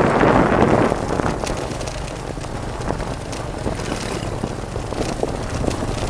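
Wind buffeting the microphone of a moving motorbike over the low running of its engine, with scattered knocks from riding over a bumpy dirt road. The wind noise eases about a second in.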